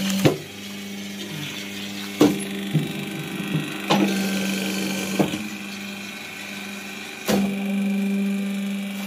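Paper plate and dona making press running with a steady mechanical hum, its die coming down on foil-laminated paper with about five sharp knocks spaced one to two seconds apart.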